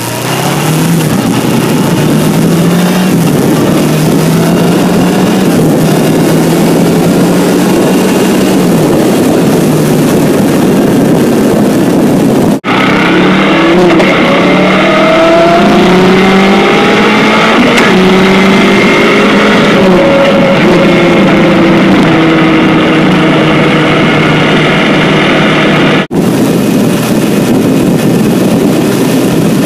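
Kawasaki Ninja 500 parallel-twin engine running under way, its pitch climbing and then dropping in steps as it shifts through the gears. Heavy wind noise on the microphone underneath.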